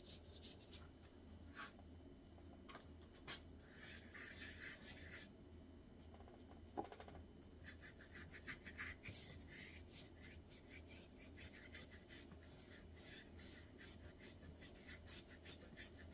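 Faint scratchy brushing of a paintbrush over paper taped to a wall, in short repeated strokes, with one sharp click about seven seconds in.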